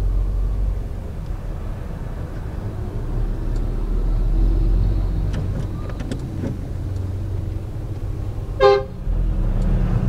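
A passing bus gives one short horn toot near the end, a thank-you signal to the car that gave way. Underneath is a steady low engine rumble heard from inside the car's cabin.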